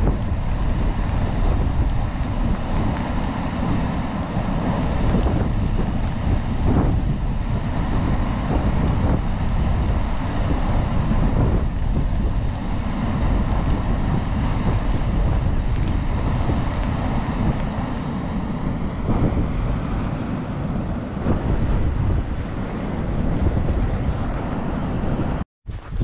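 Steady rushing hiss of a steam vent (fumarole) blowing off, with wind buffeting the microphone and adding a heavy low rumble.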